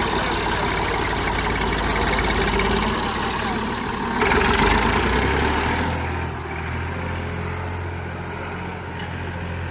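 Massey Ferguson 240 tractor's three-cylinder diesel engine running, revved up about four seconds in as the tractor pulls away, then growing fainter as it drives off.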